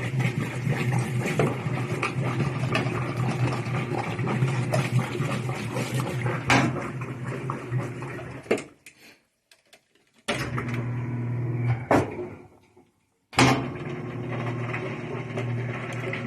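Top-load washing machine running its agitate cycle, with a steady motor hum and a few knocks. It cuts out abruptly twice in the second half.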